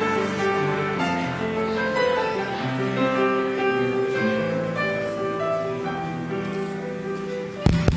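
Slow instrumental keyboard music with long held chords, gradually getting quieter. A sharp knock comes near the end.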